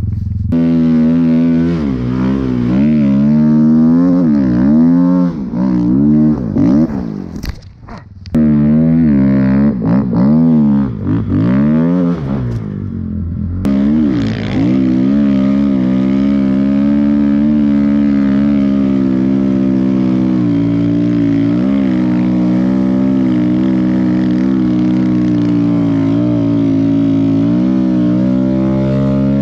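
Snowbike's dirt-bike engine under load in deep powder, revving up and down over and over, briefly dropping off about eight seconds in, then held at a steady pitch for the second half.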